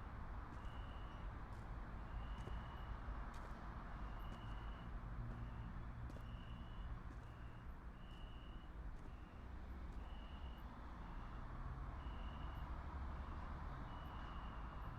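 An electronic beeper sounding a high tone in a repeating pattern, a longer beep followed by a shorter one about every two seconds, over a low steady rumble.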